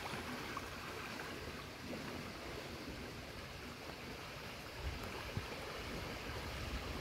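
Flooded, muddy creek rushing past in a steady wash of flowing water.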